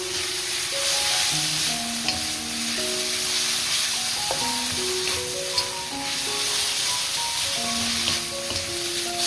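Oil sizzling in a wok as seaweed stems and onion are stir-fried and tossed with wooden spatulas, with a couple of short knocks about two and five and a half seconds in. Background music with a simple melody plays throughout.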